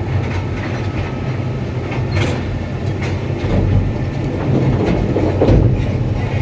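Excavator's diesel engine running with a steady low hum, over irregular metallic clanks and knocks from its crawler track, the 'sick leg' that the title points to as faulty.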